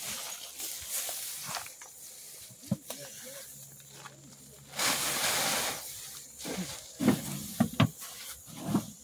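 Threshed rice grain poured from a bucket into a woven sack: a rushing hiss lasting about a second near the middle, with rustling of the sack and a few short knocks as it is handled.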